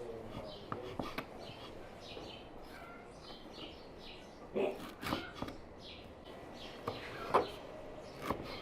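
Birds chirping, with many short, high chirps again and again. A few short, louder sounds come through about halfway through and again near the end.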